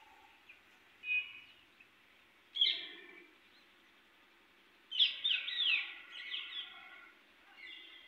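Parrots calling in short, harsh screeches: one about a second in, another a moment later, then a run of several sharp, falling screeches from about five to seven seconds, and one more near the end.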